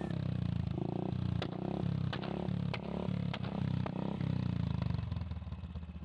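Royal Enfield Thunderbird's single-cylinder engine running at the exhaust silencer, with the throttle opened in short swells, then dropping back to a slow, evenly pulsing idle about five seconds in.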